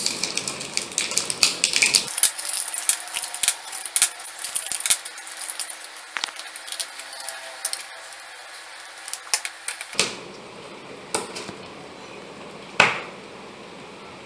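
Rustling of battery packaging and small hard clicks and rattles of AA batteries being handled and pressed into a plastic battery holder, dense at first and then sparser, with one sharper click near the end.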